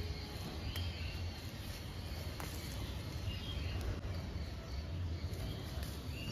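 Outdoor garden ambience: a steady low rumble with a few short bird chirps. A handful of faint clicks and leaf rustles come from flowers being picked off a shrub by hand.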